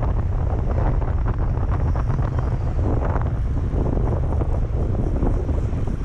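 Strong wind buffeting the microphone: a steady, heavy low rumble.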